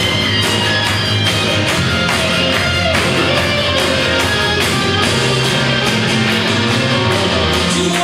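Loud rock music with guitar and a steady beat: a wrestling team's entrance music.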